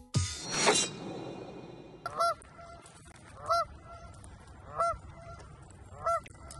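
A goose honking, four evenly spaced honks about 1.3 seconds apart, starting about two seconds in. A brief falling swish comes in the first second.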